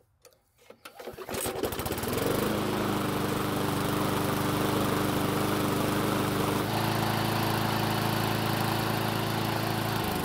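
Briggs & Stratton engine on a walk-behind rotary mower being pull-started: it catches about a second or two in and settles into a steady run. It runs the way it should after being serviced, then winds down as it is shut off near the end.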